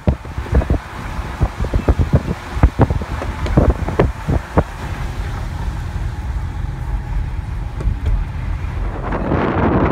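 Road and tyre noise inside a moving car: a steady low rumble, with a quick irregular run of knocks and thumps for the first four or five seconds. Near the end a broad rush of noise swells up.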